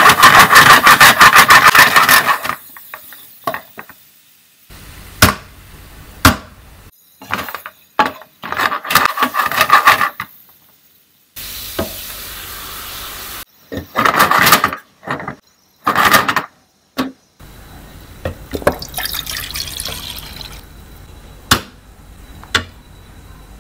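Prawns frying in a nonstick pan, stirred and scraped with a wooden spatula in several short bursts. About halfway through a liquid is poured into the pan with a steady splashing hiss, and near the end the curry simmers gently.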